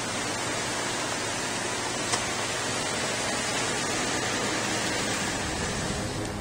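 Steady rushing noise of a pickup truck moving slowly on a gravel road, tyres and engine together, with one faint click about two seconds in.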